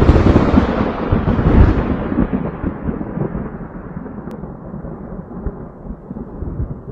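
Logo intro sound effect: a deep rumbling boom that hits suddenly and slowly dies away over several seconds, its hiss fading first.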